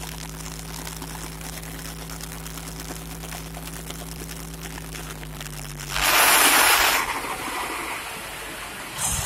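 A steady mechanical hum, broken about six seconds in by a loud hiss that lasts about a second, with a shorter hiss near the end.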